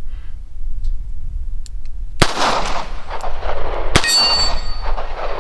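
Two double-action shots from a Taurus 605 Poly Protector polymer revolver, about two seconds apart, each with a trailing echo. The second shot hits an AR-500 steel plate, which rings with a clear metallic tone.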